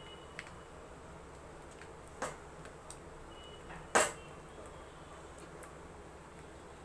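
A spatula and a stainless steel pan knocking together while thick halva is stirred: a few light ticks, a sharp knock a little past two seconds in, and a louder knock about four seconds in.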